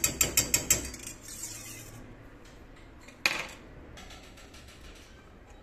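Wire whisk beating caramel sauce in a stainless steel pot, its wires clicking quickly against the pot's sides, about six or seven strikes a second, for the first second before it stops. A single sharp knock follows about three seconds in.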